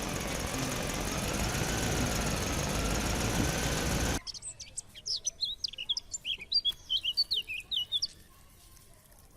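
A steady engine-like mechanical noise that cuts off abruptly about four seconds in, followed by birds chirping rapidly for about four seconds.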